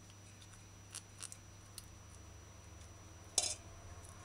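Faint clicks and scrapes of a small knife working in a sprat's belly as it is gutted by hand, with one sharper click about three and a half seconds in, over a low steady hum.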